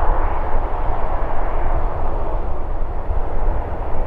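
The twin CFM56-7B jet engines of a Boeing 737-700 running steadily as the airliner taxis, a constant low rumble with no change in thrust.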